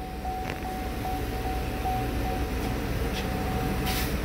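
A 2012 Chevy Cruze's 1.8-litre four-cylinder engine idling steadily: a low running rumble with a steady high whine that pulses about four times a second.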